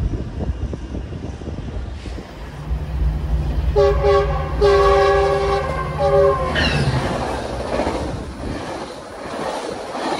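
Train rumbling past, with a locomotive horn sounding a few short blasts and one long blast about four seconds in, over the steady hum and wheel clatter of the train.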